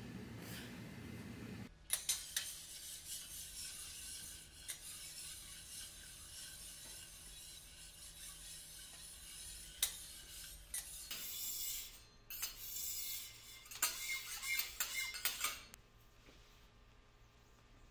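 Metal teppanyaki spatulas clicking and scraping on a hot steel griddle over a steady sizzle, busier and louder for a few seconds toward the end, then stopping.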